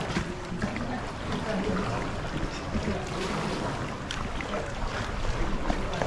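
Wind rumbling on the microphone over water lapping around a sea kayak, with scattered small splashes and clicks.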